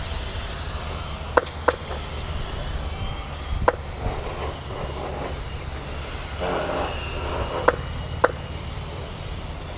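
Electric RC mini racing cars running a race: a thin high motor whine that rises and falls as the cars accelerate and brake, over a steady low rumble. Five short sharp ticks stand out as the loudest sounds.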